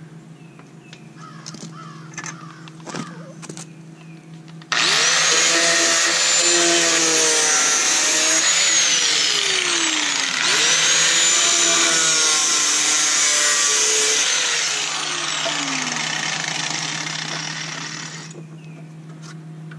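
Angle grinder cutting rusted sheet metal out of a truck's inner rocker and cab corner. It starts about five seconds in and runs twice, each time spinning up to a high whine over the grinding noise and then winding down.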